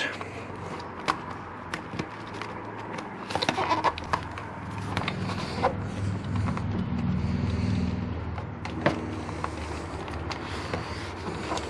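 Hands feeding a wiring cable down behind a motorcycle's plastic fairing and airbox, making scattered light clicks, taps and rubbing on the plastic. A low rumble swells about five seconds in and eases off near the end.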